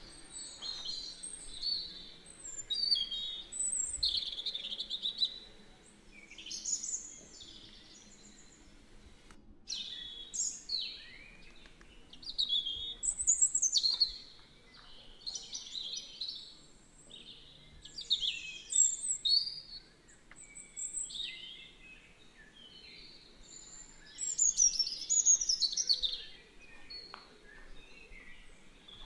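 Birds calling: short runs of high chirps and whistled notes that sweep up and down, coming every few seconds.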